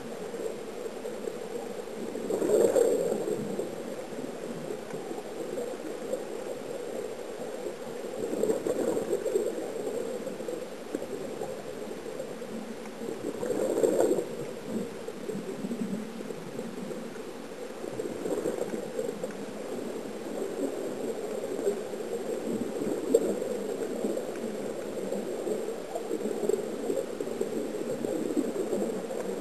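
Muffled underwater bubbling and air noise, heard through a camera's underwater housing, swelling into louder bursts of bubbles about every five or six seconds.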